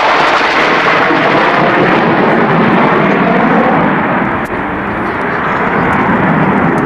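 Blackburn Buccaneer jet passing low overhead, its twin jet engines loud with a rushing rumble; from about halfway through the hiss thins out as the aircraft draws away.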